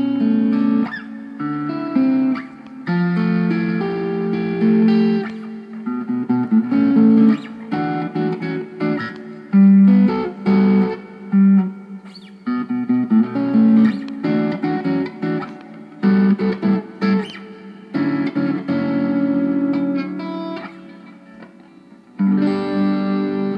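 Electric guitar played through a 6505 Piranha mini amp head into a tiny closed-back speaker cabinet: strummed chords and short note phrases with brief pauses. The small closed cab makes the tone sound trapped in.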